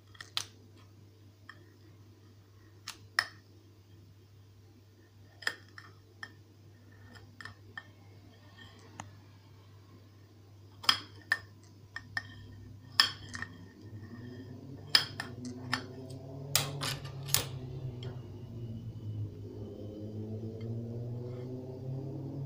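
A metal blade clinking and tapping against a ceramic plate as a cabbage-leaf-wrapped sandwich is cut through: about a dozen sharp, briefly ringing clinks, coming faster in the second half. A steady low hum lies underneath and grows louder in the second half.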